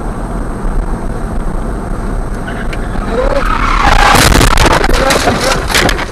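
Dashcam car crashing off the road: road noise rises into skidding, then a loud burst of clattering and banging from the impact and flying dirt about four seconds in, lasting a second or two.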